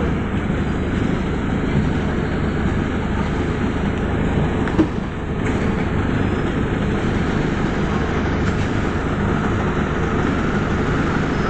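Ikarus city bus's diesel engine idling steadily, heard from inside the passenger cabin while the bus stands still. A single short knock sounds about five seconds in.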